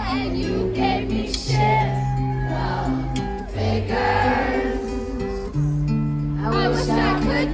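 Music: a song with wavering, drawn-out vocals over long sustained bass notes.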